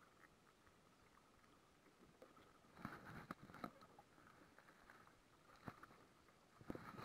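Faint rustling and knocking as a freshly caught fish and its line are handled in a small wooden boat, in two short clusters about three seconds in and near the end, over a quiet steady background.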